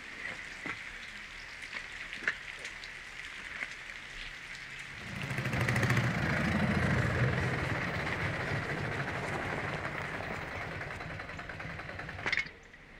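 A motor vehicle engine running, coming in about five seconds in and easing off before dropping away near the end. Before it there is only faint background with a few light clicks.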